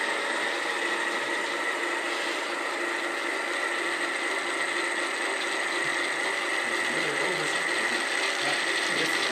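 Small electric drive motor and gearbox of a scale model Mercedes G-Class towing a caravan, whining steadily with a held high tone as it drives. It gets a bit louder near the end as the model comes closer.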